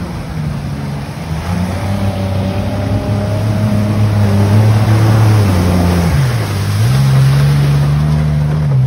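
Ford Ranger pickup's engine, breathing through a PVC snorkel, running hard as the truck ploughs through deep muddy water, with water splashing and washing around it. The engine note drops about six seconds in and then climbs again as the truck drives out of the water.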